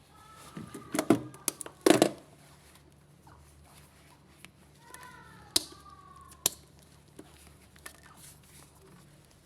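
Irregular sharp clicks and knocks of parts being handled, most of them clustered between one and two seconds in, then two single knocks later. Faint wavering tones come briefly twice.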